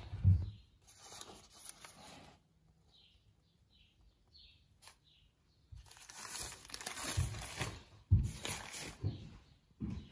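Old paper receipt sheets rustling and crinkling as they are handled and turned by hand, in two spells: from about a second in, and again from about six seconds to nine, with a few soft thumps. Faint bird chirps come in the quiet stretch between.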